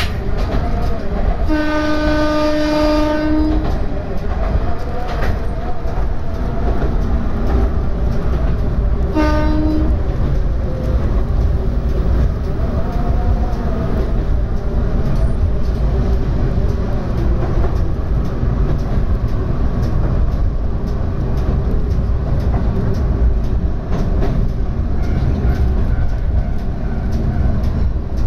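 Diesel railcar running, heard from inside near the cab: a steady low engine and rail rumble. The railcar's horn gives one blast of about two seconds a couple of seconds in, and a short second blast around nine seconds in.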